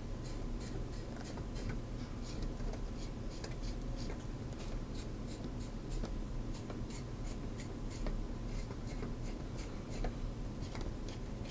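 Light, uneven clicks and scratches, a few a second, from the spring-loaded mounting caps of an EK Supremacy CPU water block being turned down on their threaded posts a few turns at a time in a crisscross pattern.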